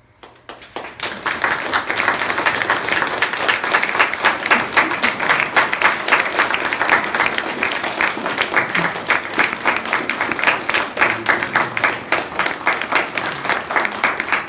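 Audience applauding: clapping starts about half a second in, swells within a second, and carries on steadily and densely.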